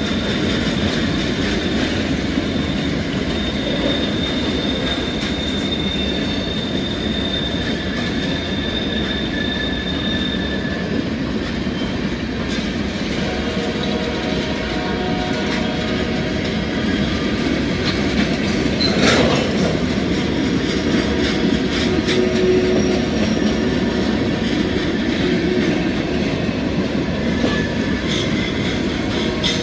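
Freight cars of a Norfolk Southern manifest train rolling past: a steady wheel-on-rail rumble with clicking over the rail joints and a faint high wheel squeal in the first third. A single sharp bang comes about 19 seconds in.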